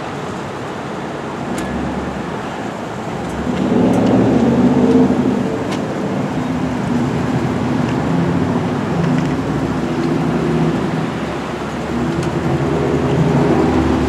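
Idling vehicle engines and traffic noise. A louder engine hum swells about three and a half seconds in, with a few faint clicks.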